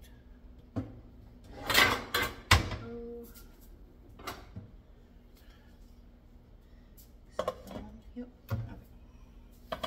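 Cookware clattering as a kitchen drawer is pulled open and a glass pot lid is taken out, loudest about two seconds in. A few lighter knocks and clinks of the lid on the skillet follow near the end.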